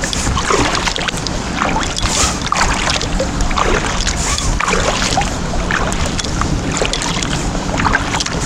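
Kayak paddles dipping and splashing in calm water, with irregular splashes and drips from the blades, over a steady low rumble.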